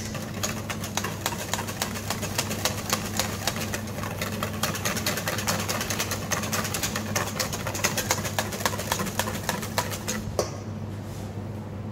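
Wire balloon whisk beating egg yolk sabayon in a stainless steel bowl, a fast steady ticking of wires against metal that stops about ten seconds in. A steady low hum runs underneath.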